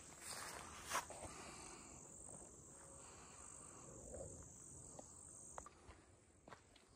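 Insect buzzing steadily at a high pitch, cutting off suddenly about five and a half seconds in. A sharp click about a second in.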